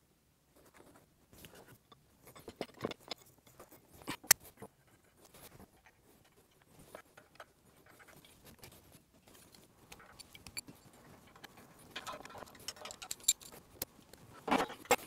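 Sped-up time-lapse sound of a 20-ton hydraulic shop press being assembled: a rapid, irregular patter of small clicks, clinks and rustles from steel parts, tools and paper being handled, with one sharper metal knock about four seconds in.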